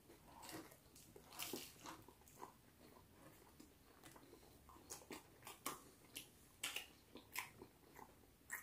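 Crisp toasted bread being bitten and chewed, in short irregular crunches.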